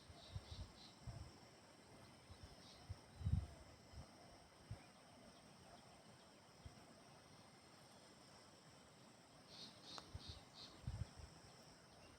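Faint, steady high-pitched trilling of crickets and other insects, with two short runs of quick chirps, one at the start and one near the end. Scattered low thumps break in, the loudest about three seconds in.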